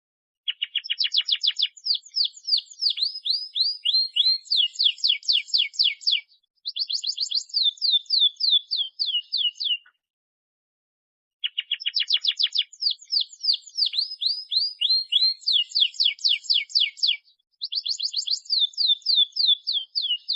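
Domestic canary singing long phrases of fast, rapidly repeated high notes. Two bouts of about nine seconds each are split by a silence of under two seconds, and the second bout repeats the first note for note. It is a looped recording of a strongly singing (gacor) canary, used as a lure song to set other canaries singing.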